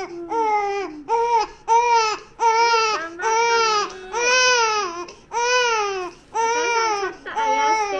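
A three-month-old baby crying hard after vaccine injections: a string of high wails, each rising then falling in pitch, about one a second, with short catches of breath between them.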